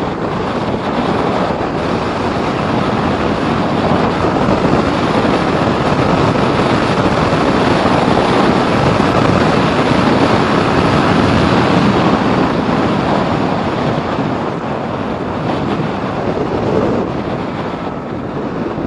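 Yamaha MT-15 motorcycle's single-cylinder engine pulling at speed in top gears, mixed with heavy wind rush on the camera microphone. The sound builds over the first ten seconds or so, then eases off near the end.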